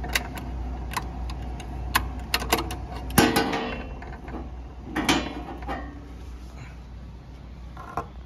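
Metal clicks and knocks as the hook with its integrated bobbin case is worked out of its retainer under a heavy-duty pattern sewing machine and handled. A louder clank with a brief metallic ring comes about three seconds in, and another about five seconds in.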